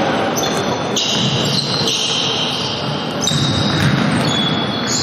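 Basketball bouncing on a wooden sports-hall floor as it is dribbled, with several high-pitched sneaker squeaks on the boards as players move and stop.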